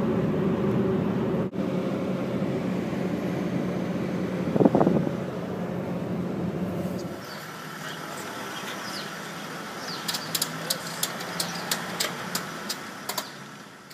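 Vehicle driving on a highway, heard from inside the cab: a steady engine and road hum, with a brief louder swell about five seconds in. After a cut it turns quieter, and a run of sharp clicks follows, about two a second.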